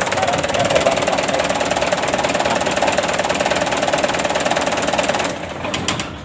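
Mitsubishi Canter truck's diesel engine idling steadily, then shut off by its electric fuel-cut (engine stop) motor about five seconds in, running down with a few knocks as it stops: the sign that the fuel-cut wiring works.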